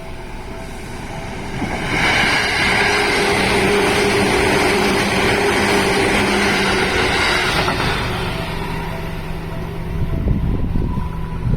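Seibu 2000 series electric train passing at speed: the noise of wheels and motors swells about two seconds in, stays loud with a steady hum for about six seconds, then fades into a low rumble.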